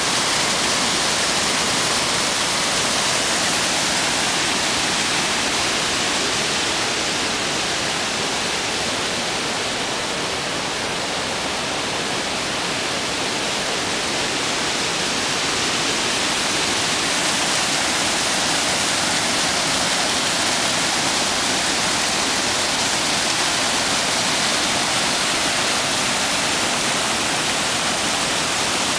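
A waterfall: a steady, unbroken rush of falling water.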